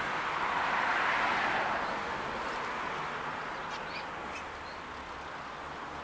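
A few short, high chirps from small aviary finches over a steady rushing background noise that swells about a second in and then slowly eases.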